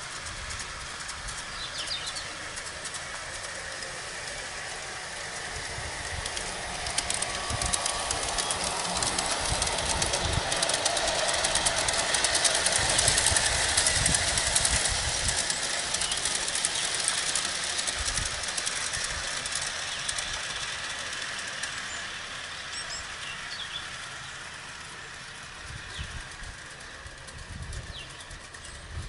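G-scale model ALCO diesel train running along garden railway track, its wheels rolling on the rails. It grows louder as it passes close in the middle, then fades away.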